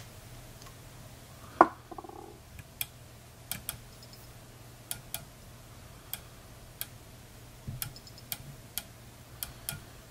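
Scattered light clicks and taps, about a dozen at uneven intervals, from handling a head-cement brush cap while glue is brushed onto the thread head of a fly held in a tying vise. One sharper click comes about one and a half seconds in, over a low steady hum.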